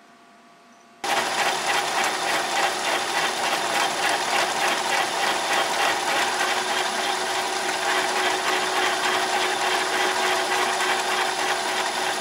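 Milling machine spindle driving a twist drill into a steel flywheel, cutting one of a ring of bolt holes: a loud, steady machine whine with a rapid chattering cutting noise. It starts abruptly about a second in.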